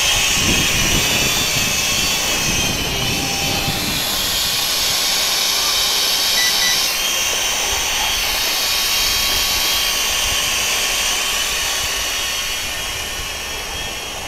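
XK X300 quadcopter's motors and propellers whining steadily as it hovers in position hold, fighting the wind; the sound grows fainter near the end as the drone moves farther away. Wind gusts on the microphone in the first few seconds.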